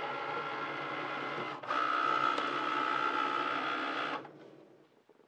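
Cricut Maker cutting machine running: a steady motor whir that gets louder, with a higher whine added, about a second and a half in, then stops about four seconds in.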